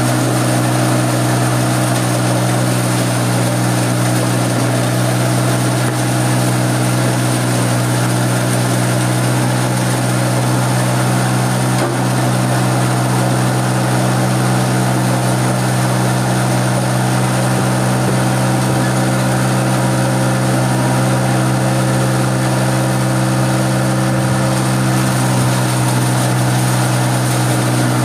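Small hammer-mill stone crusher, driven by a three-phase electric motor, running steadily with a deep, even hum and a dense rushing noise over it.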